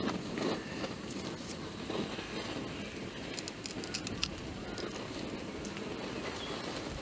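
Green moringa drumsticks snapped into pieces by hand: a scattering of faint crisp clicks and crackles, most of them about three to four seconds in, over a steady outdoor background.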